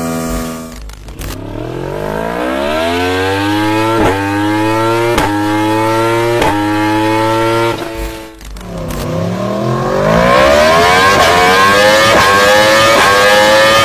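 Yamaha YZF-R series sport bike's engine and exhaust accelerating hard, the pitch climbing and briefly cut at each quick upshift, about four in a row. Near the middle it falls away, then pulls again with a louder, rising howl.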